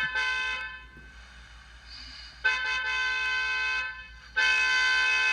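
Car horn honking three times: a short toot, then two longer honks of about a second each.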